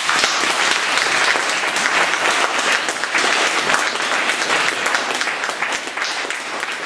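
Audience applauding, a dense patter of many hands that grows quieter near the end.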